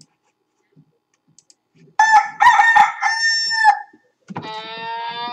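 A loud crowing call about two seconds in, chopped into short notes at first and ending on one long held note. Distorted guitar music comes in near the end, its first note sliding up.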